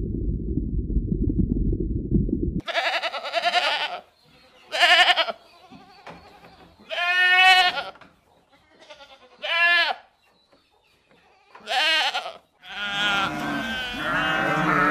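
A low muffled rumble for the first two and a half seconds, then goats bleating: five separate quavering calls one to two seconds apart. Near the end several goats bleat over one another.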